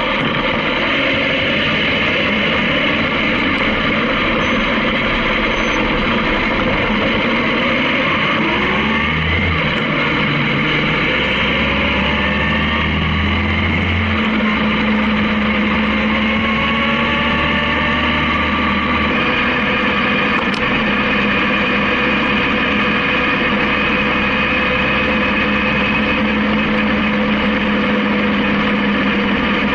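Honda CB750K air-cooled inline-four engine running under way with steady wind rush; a few seconds around the middle its pitch climbs as the bike picks up speed.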